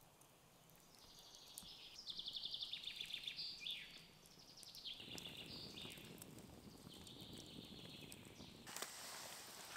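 A songbird singing in the woods: fast high trilled phrases, one ending in a falling flourish, repeated a few times. Near the end a broad hiss, like rustling, sets in.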